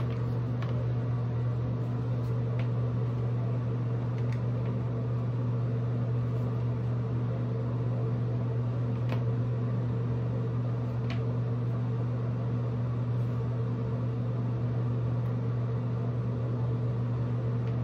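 Steady low hum of a fan motor, with a few faint clicks.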